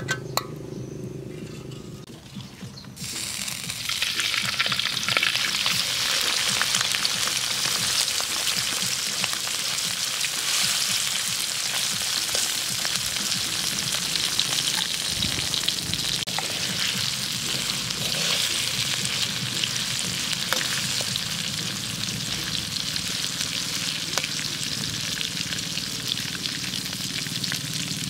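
Whole crickets frying in hot oil in a wok, sizzling and crackling steadily; the sizzle starts suddenly about three seconds in.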